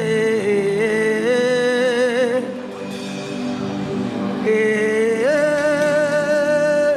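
Slow worship music with singing: long held notes that step from one pitch to another, dipping softer in the middle before rising again.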